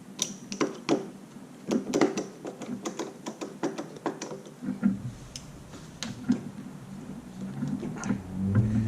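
Irregular metal clicks and taps of a screwdriver and door knob hardware as the knob is screwed together through the door.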